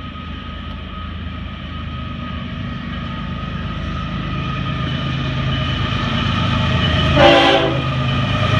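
Approaching CSX diesel freight train sounding its horn: a long held blast that grows louder as the locomotives near, then a short, louder blast about seven seconds in, over the rising rumble of the diesel engines.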